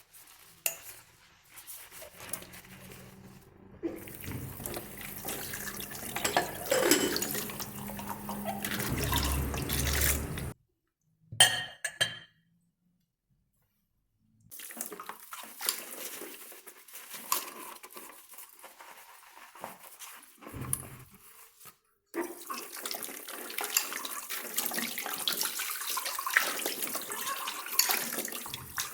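Water running from a tap into a kitchen sink, with dishes clinking now and then, in several short clips broken by sudden silent cuts. A low hum sits under the water for the first third.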